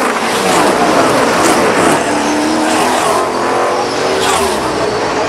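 NASCAR Cup stock cars' V8 engines passing at speed one after another, each engine's note dropping in pitch as it goes by.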